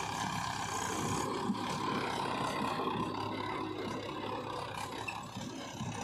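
Diesel engines running steadily: a Mahindra 475 DI tractor pulling off with a trolley loaded with earth, with a JCB 3DX backhoe loader running close by.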